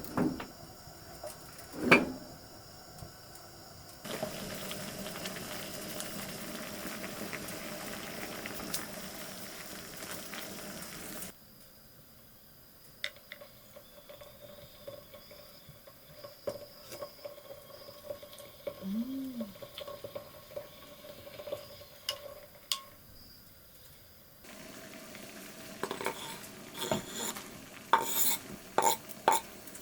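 Cooking sounds: metal utensils clinking against a pan and food sizzling, with sharp clinks, a steady sizzle, a quieter stretch of scattered clicks, and then a busier run of clatter near the end.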